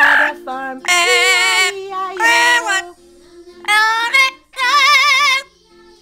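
Blue-fronted Amazon parrot singing five loud, wordless, high-pitched notes, some gliding up or down; the last and longest wavers with a strong vibrato.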